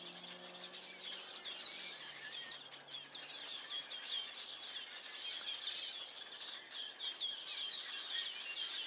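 A large flock of songbirds chattering together in a tree: a dense, continuous chorus of many overlapping short, high chirps.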